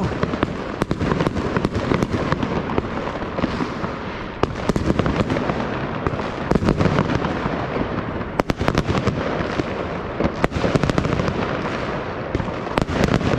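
Many fireworks going off at once: a dense, continuous rumble of bangs with frequent sharp cracks and pops throughout.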